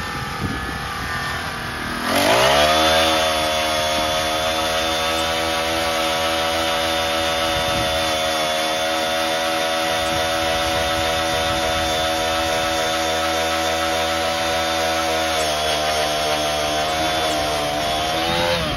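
A small petrol engine revs up about two seconds in, then runs at a steady high speed. It steps down a little after about fifteen seconds and rises again near the end.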